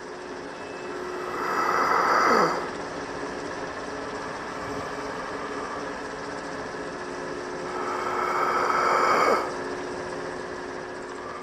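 Sound-effect whir of a vintage film projector running steadily. It swells twice, about seven seconds apart, each time rising over a couple of seconds and then cutting off sharply with a falling sweep.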